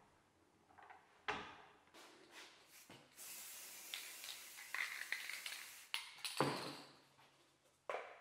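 A metal sander table top being degreased: a steady hiss lasting about three seconds, from spray and a cloth rubbing over the metal. A few light knocks and clunks come around it, the sharpest about six seconds in.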